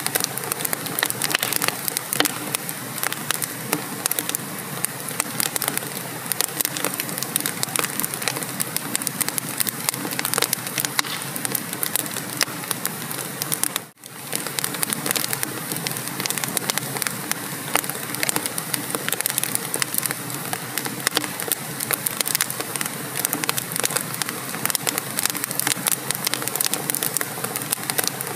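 Wood fire burning in a fireplace, a steady stream of dense crackling and small pops. It cuts out for a moment about halfway through.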